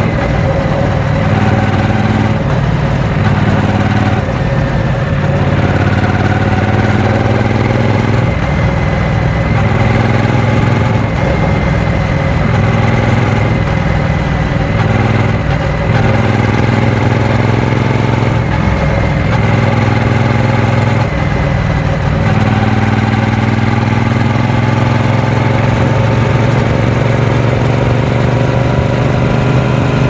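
Triumph Speed Twin 900's parallel-twin engine running while the motorcycle is ridden along the road. The engine note climbs gradually and dips and picks up again several times as the throttle is eased and reopened.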